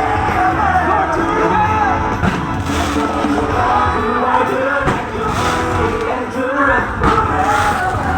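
Loud music with singing, over a crowd's voices, with a few brief noise bursts.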